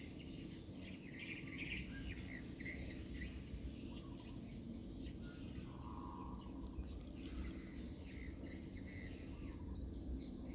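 Outdoor background ambience: a steady low rumble with insects and many short scattered chirps.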